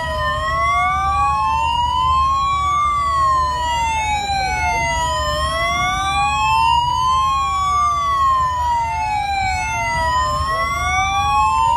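Police escort sirens wailing, at least two of them out of step, each tone slowly rising and falling over a low rumble.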